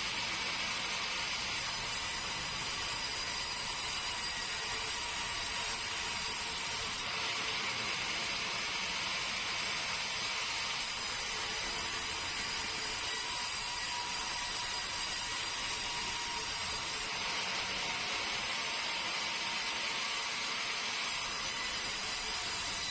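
Sawmill saw running steadily through keruing hardwood with a continuous mechanical hiss and a few steady tones, the high hiss switching on and off every few seconds.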